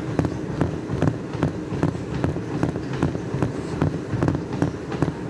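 Quick, even footfalls of a person bouncing on their feet while shadowboxing: light taps with low thuds, about five a second.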